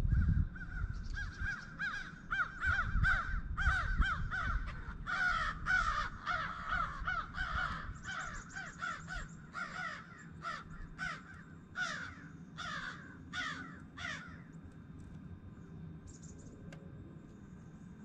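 Blue jays giving harsh, repeated jeer calls, several a second and overlapping, which stop a few seconds before the end. A low rumble runs underneath in the first half.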